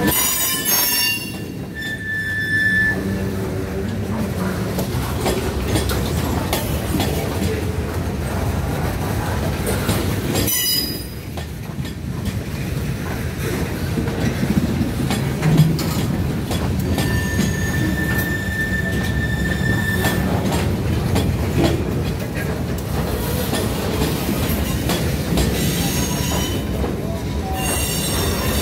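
Freight cars of a manifest train rolling past: a steady rumble and clatter of steel wheels on rail. High-pitched wheel squeals come briefly about two seconds in and again for a few seconds past the midpoint.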